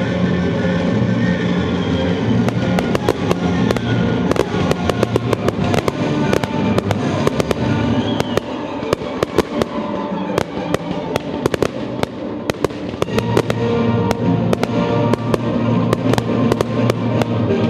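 Aerial firework shells bursting in quick succession, a string of sharp bangs and crackles, over music with sustained notes.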